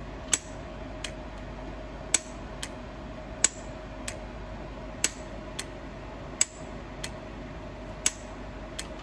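HVAC refrigerant solenoid valve clicking as its coil is switched on and off: six sharp clicks, each followed by a softer click about half a second later, as the plunger pulls in and drops back. This tak-tak clicking is the sign that the valve is working.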